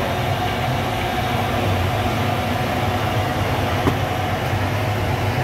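Steady low rumble, with a light clink about four seconds in.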